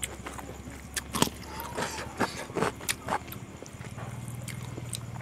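Close-miked eating sounds: a run of wet mouth clicks and smacks while chewing rice and pork curry by hand, bunched in the first half. A steady low hum comes up about four seconds in.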